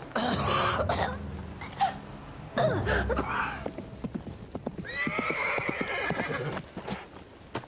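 A horse whinnying several times, with its hooves clip-clopping through the second half.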